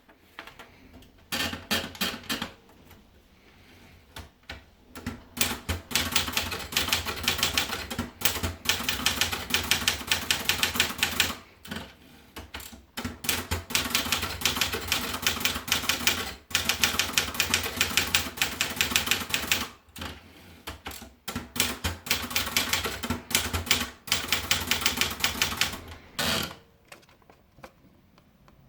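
Erika model 150 typewriter being typed on: runs of rapid key strikes broken by short pauses, stopping a couple of seconds before the end.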